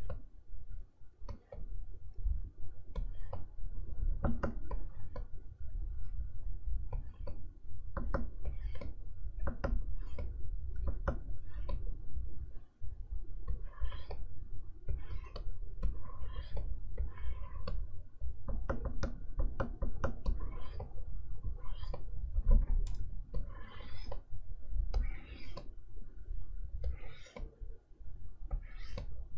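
Plastic stylus nib tapping and scratching on an XP-Pen Artist 15.6 Pro pen display's screen as lines are drawn: irregular clicks and short scratchy strokes, over a low steady rumble, with one sharper click late on.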